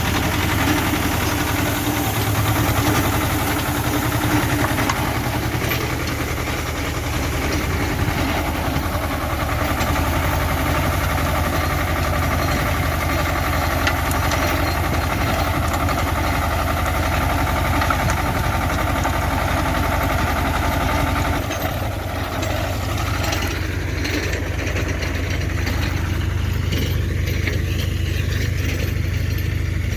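Tractor diesel engine running steadily while driving a rotary soil tiller. Its churning noise drops off about three-quarters of the way in, leaving mostly the low engine sound.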